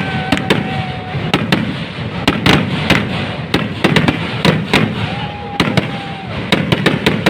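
Fireworks going off: a dense, irregular run of sharp cracks and bangs over a constant crackle. A held high tone sounds twice, once near the start and again about five seconds in.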